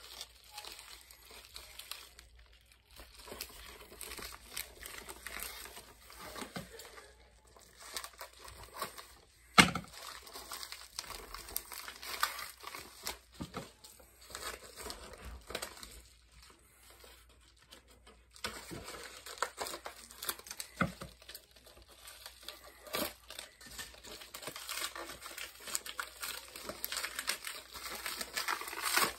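DVD packaging being unwrapped: plastic crinkling and tearing in irregular crackles, with one sharp click about ten seconds in.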